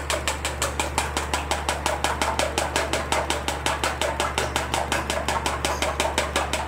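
Eggs being beaten by hand in a stainless steel bowl: a utensil clicks against the metal bowl in a fast, even rhythm, about six or seven strokes a second.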